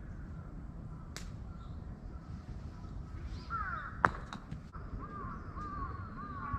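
Crows cawing in a run of repeated calls that starts about halfway through. About four seconds in there is one sharp knock, followed by a few lighter clicks.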